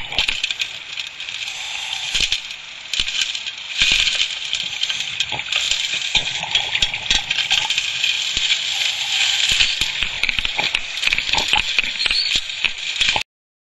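Dense crackling and rattling, heard underwater, of sediment and debris being drawn into a dredging suction nozzle. It cuts off abruptly near the end.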